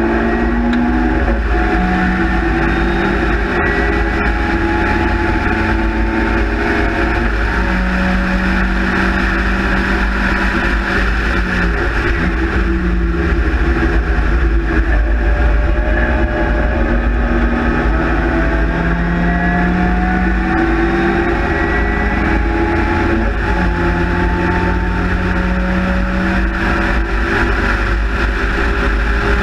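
Austin-Healey Sprite / MG Midget race car's four-cylinder engine at racing speed, heard from inside the open cockpit: the engine note keeps climbing and falling as the driver works through the gears, with steady wind and road rumble underneath.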